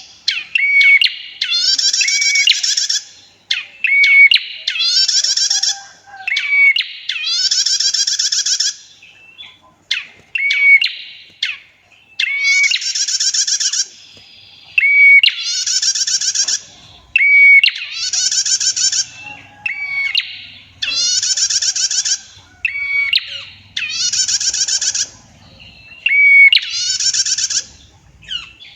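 A female prenjak (prinia) calling in repeated phrases about every two seconds. Each phrase is a short whistled note followed by a long, loud, rattling trill.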